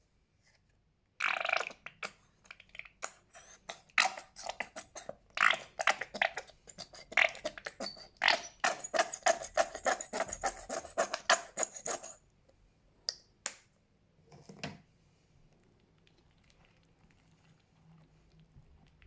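Fluffy slime being squeezed and stretched by hand, its trapped air pockets giving rapid sticky clicks and pops for about ten seconds. A few separate pops follow.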